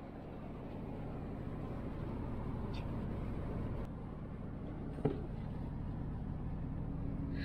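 Steady engine and tyre rumble heard inside a truck cab driving on a snowy road, growing louder over the first second or so. A single sharp click about five seconds in.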